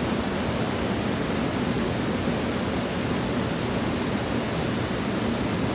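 Steady, even rushing noise, heaviest in the low range, with no distinct knocks or calls standing out.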